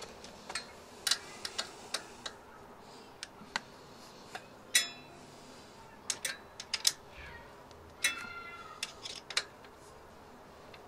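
Irregular small metallic clicks and taps from hands working at a mountain bike's rear disc brake, two of them ringing briefly.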